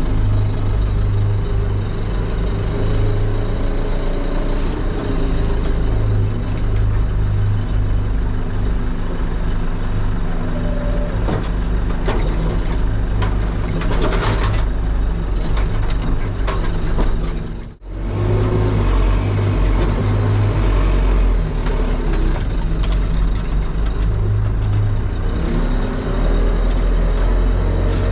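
Case 695SR backhoe loader's diesel engine running steadily under work, with a few knocks in the middle. The sound drops out for a moment about two-thirds of the way through.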